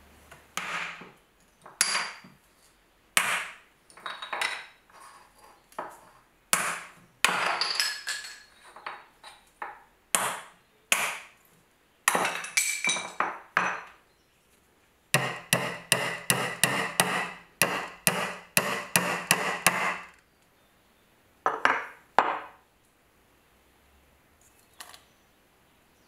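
Blows of a restored steel multitool hatchet-hammer on wood: a string of separate strikes, then about five seconds of quick ringing hammer blows, about three a second, as if driving a nail. Two more blows follow about 22 seconds in, then a light tap near the end.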